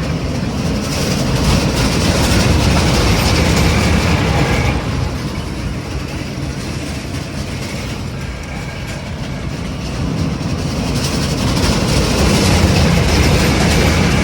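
Ride cars rumbling and clattering along a track, swelling louder twice as they pass close.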